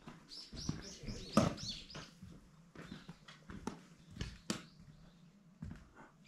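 Footsteps scuffing and knocking along a rocky trail. In the first two seconds a small bird gives a quick run of about eight high chirps.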